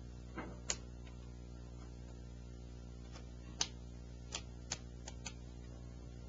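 A handful of short, sharp taps and slaps as hands press pasted kraft paper onto a round aerial firework shell, spaced irregularly, over a steady low hum.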